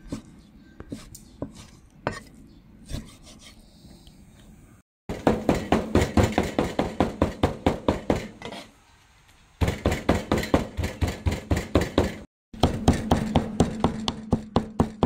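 Chinese cleaver mincing pork on a thick wooden chopping block: a few slower, softer cuts at first, then runs of fast, even chops at about five strokes a second.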